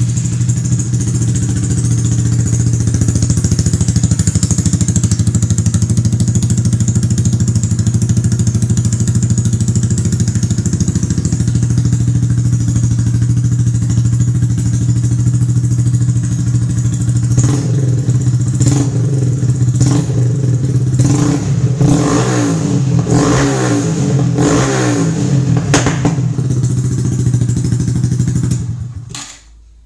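Honda Grom's 125 cc single-cylinder engine running through an M4 exhaust with its baffle removed, idling steadily. From about halfway it is revved in a series of quick throttle blips, then shut off just before the end.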